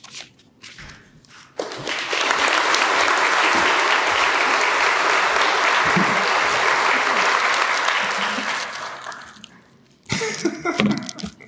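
Audience applauding. The applause starts about a second and a half in, holds steady, and dies away a second or so before the end.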